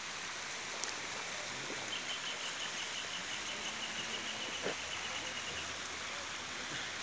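Steady outdoor hiss of moving water or wind. From about two seconds in to past five seconds it carries a quick run of small high ticks, about five a second.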